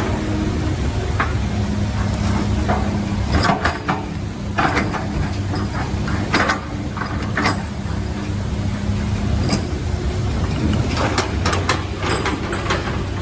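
Heavy diesel engine running steadily under load, with scattered metallic knocks and clanks.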